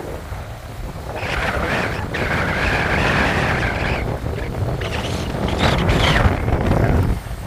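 Strong wind buffeting the microphone with a constant low rumble. A louder hissing buzz sounds over it from about a second in, and again for a stretch around five to six seconds in.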